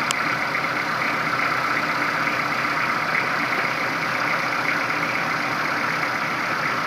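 Kubota L4240HST-3 tractor's four-cylinder diesel engine idling steadily, with a single click at the very start.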